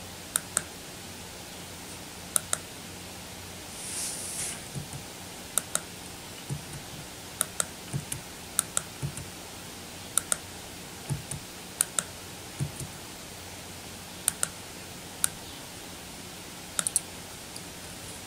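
Computer mouse clicks, many in quick pairs, scattered through a steady hiss, with a short rustle about four seconds in.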